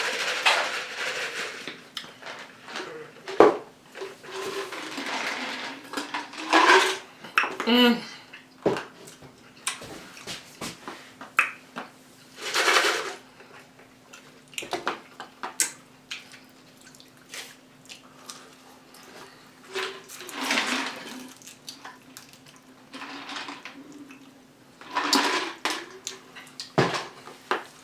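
Close-up eating sounds: chewing and crunching of loaded tortilla-chip nachos in short bursts, with clicks of utensils against dishes, over a steady low hum.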